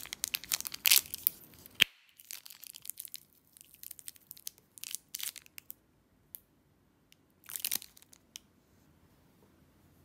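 Plastic wrapper of an individually wrapped cough drop being torn open and crinkled, in bursts of crackling rustle with a few sharp clicks; the last burst comes about seven and a half seconds in.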